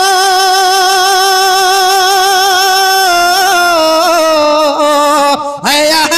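A man singing a naat, holding one long note with slight vibrato and then sliding down through ornamented turns about three seconds in. He breaks off briefly near the end and comes back in.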